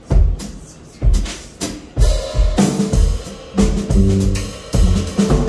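Live jazz drum kit playing, with bass drum, snare and rim hits. About two seconds in, held low notes from another instrument join the drums.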